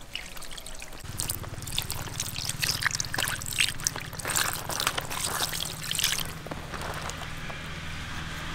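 Water poured from a plastic dipper splashing and trickling over raw fish pieces as they are rubbed clean by hand. The splashing is busiest in the first six seconds, then thins out.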